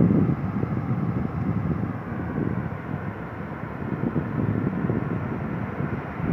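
Rough sea surf washing over a rocky shore: a steady, noisy rushing with no break, and wind on the microphone.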